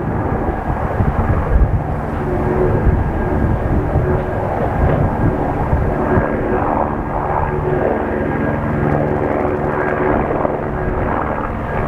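Steady drone of an aircraft engine, with a few held tones, over a low rumbling roar from an erupting lava vent.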